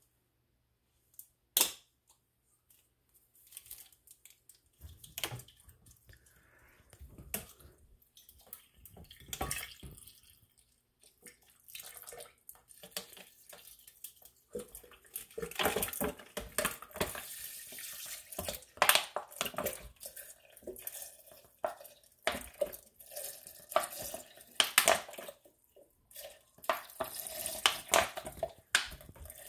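Bottled water poured from plastic water bottles into a blender jar, in several spells through the second half. Before that come scattered clicks and knocks as the bottles are handled.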